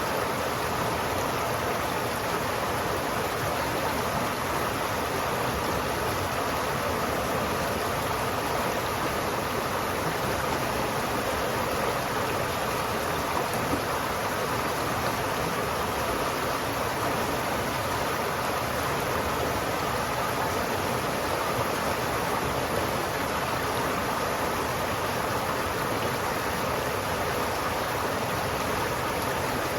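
River water flowing, a steady continuous rushing.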